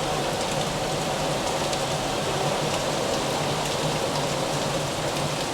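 Steady rain falling, an even hiss with faint drop ticks.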